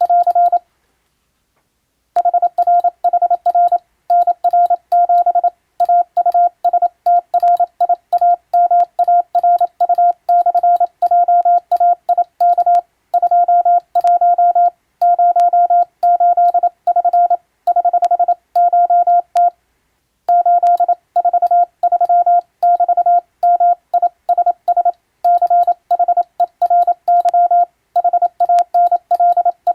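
Morse code sent by hand on a telegraph key as a single steady mid-pitched beep, keyed on and off in dots and dashes to spell out an English-language radiotelegram. It stops for about a second and a half near the start and briefly about two-thirds of the way through.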